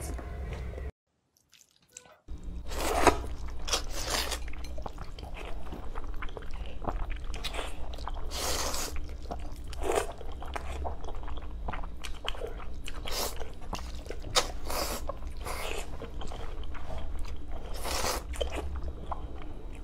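Close-miked slurping and chewing of noodles: repeated wet slurps and chews, some drawn out, over a low steady hum. It drops out to silence for about a second near the start.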